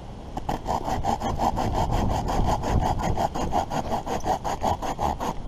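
Hand saw cutting through wood with quick, even back-and-forth strokes, about six a second, starting about half a second in and stopping just before the end.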